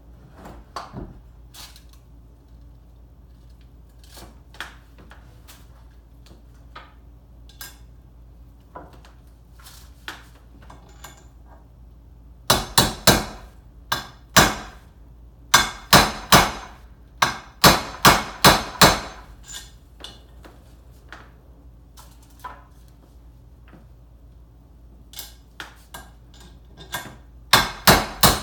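Hammer blows on metal in several bursts of sharp taps, the longest a run of about a dozen quick strikes, driving a bearing into a motorcycle engine's crankcase half.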